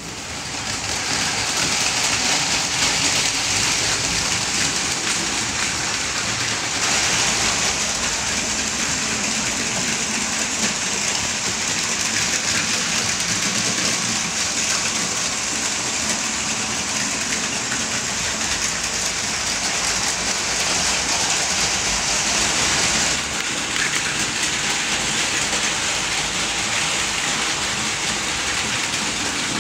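Several Plarail Advance battery-powered toy trains running at once on plastic track: a dense, steady whirring rattle of their small gear motors and wheels. It swells in the first second or two and shifts slightly about seven seconds in and again near the end.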